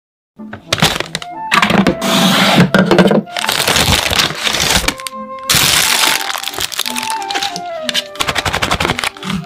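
McDelivery paper takeaway bag crinkling and rustling in sharp bursts as it is handled and opened, starting about half a second in, with music underneath.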